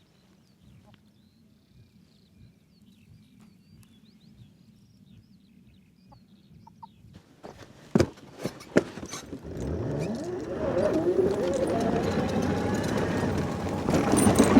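Faint bird chirps over a low rumble, then a few sharp knocks about eight seconds in, followed by a much louder rumbling noise with rising whines.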